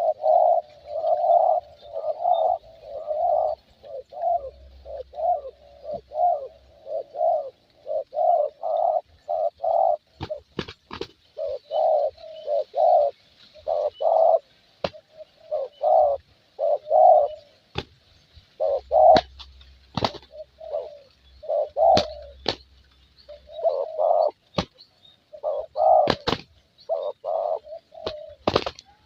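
Spotted dove (terkukur) cooing in quick repeated phrases of short notes, with brief pauses between phrases. From about a third of the way in, sharp clicks cut in among the coos.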